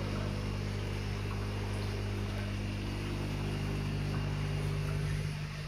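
Steady low machine hum made of several fixed pitches, dipping briefly near the end.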